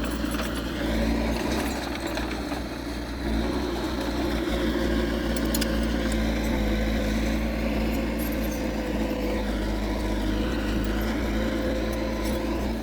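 Diesel engine of heavy earth-moving machinery running steadily under work, with a higher whine that rises and falls a few times.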